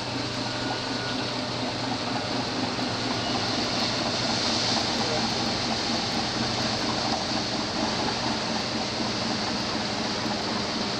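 The ferry Misen Maru's engines running with a steady hum as it passes close, over a constant rush of churning wash and water. It grows a little louder a few seconds in.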